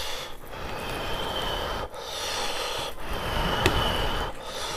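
A man breathing heavily through his nose close to the microphone, about four long breaths in a row.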